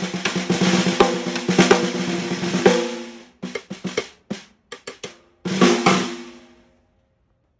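Pearl Master Maple 6-ply 14x5 snare drum played with sticks: busy rolls and strokes for about three seconds, then a few sparse, lighter strokes, then a last hit that rings out with a clear pitched tone and dies away to silence.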